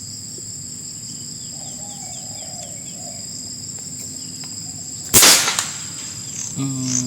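A single shot from an FX Impact M4 .177 air rifle about five seconds in, sudden and loud and briefly ringing, over steady insect buzzing.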